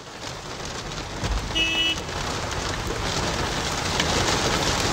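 Heavy rain pouring down onto a flooded street, a steady hiss of rain and running water. A brief tone sounds about one and a half seconds in.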